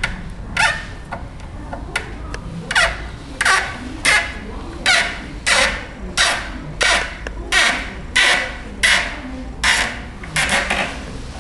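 Screws being driven by hand with a screwdriver into a wooden wardrobe panel: a rasping grind with each twist, repeated about one and a half times a second.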